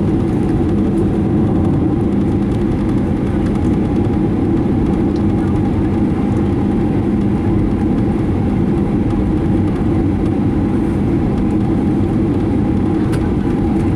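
Steady drone of a Boeing 737-900ER's CFM56-7B jet engines at ground idle, heard from inside the passenger cabin before takeoff.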